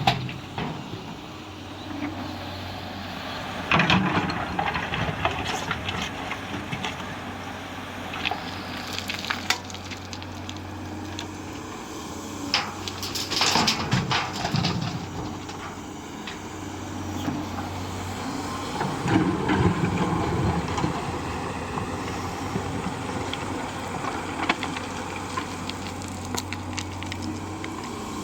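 Excavator running with a steady low engine hum, broken by irregular knocks and rattles. The hum drops away for a few seconds in the middle.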